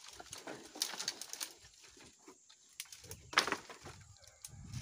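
Dry firewood branches clattering and cracking as they are gathered by hand into a bundle: a scatter of sharp knocks, the loudest about three and a half seconds in.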